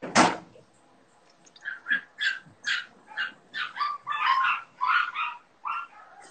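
A dog barking and yipping in a quick series of about ten short, high-pitched calls, after one loud, sharp burst right at the start.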